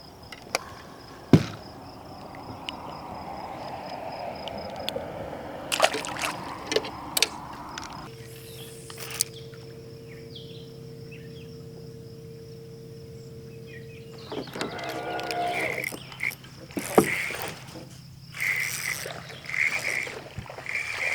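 Small fishing boat on the water: scattered clicks and knocks over a swell of water noise, then a steady hum for about six seconds in the middle, and more knocks and short bursts of noise near the end.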